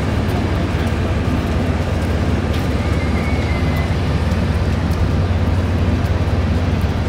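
Steady low mechanical drone of running machinery, an unbroken hum with no rise or fall.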